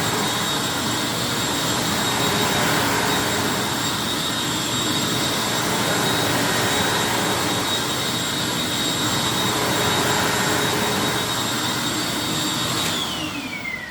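Hoover WindTunnel upright vacuum cleaner running steadily, a constant high whine over loud rushing airflow. Near the end it is switched off and the motor winds down, its whine falling in pitch.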